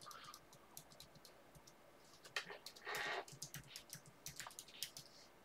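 Typing on a computer keyboard: a run of quick, faint key clicks, with a brief louder hiss about three seconds in.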